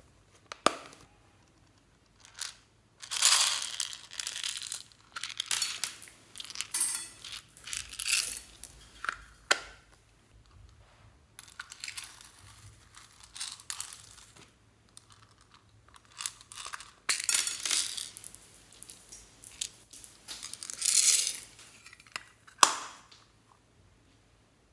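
Small plastic toy cases being handled and clicked open, with foam beads rattling and pouring out of them into a glass bowl, in several bursts separated by short pauses. A sharp click near the start and another near the end.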